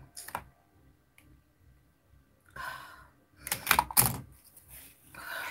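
A person sniffing and catching her breath as she begins to cry. There are a few short, sharp breathy noises, the loudest a cluster about four seconds in.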